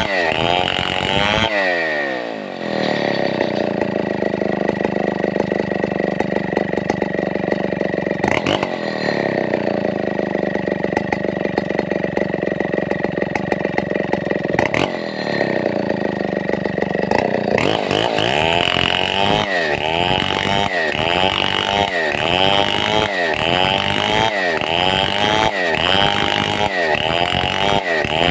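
Stihl 070 two-stroke chainsaw running hard while cutting timber. About two seconds in its engine note drops and then holds steady, lifts briefly near the middle, and in the last third the revs rise and fall rhythmically, a little over once a second.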